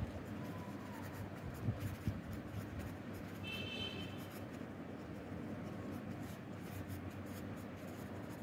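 Pen writing on paper by hand: a quiet, steady scratching of the tip across the page as words are written out, with a few small clicks of the pen.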